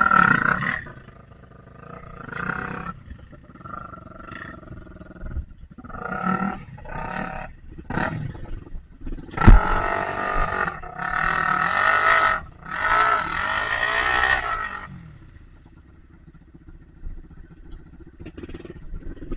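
Dirt bike engine revving hard in repeated bursts, the longest and loudest about halfway through. There is one sharp, loud knock just before that long burst.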